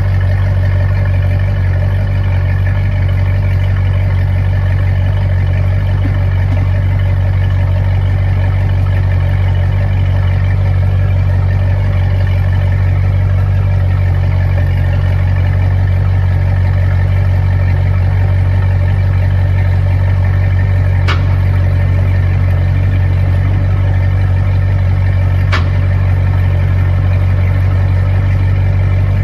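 Volvo Penta sterndrive boat engine idling steadily at an even, unchanging speed, freshly reinstalled after the repair. Two brief clicks about four seconds apart in the second half.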